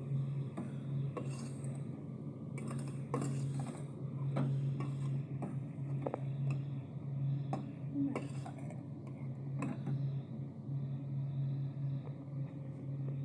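A metal ladle stirring grated carrots in a metal cooking pot, clinking and scraping against the pot's sides and bottom in irregular strokes. A steady low hum runs underneath.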